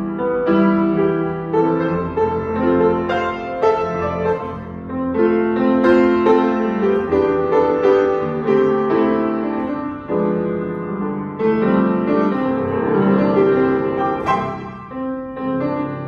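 A black J.Backer 120 cm upright piano being played, with chords and melody notes struck one after another and left ringing into each other.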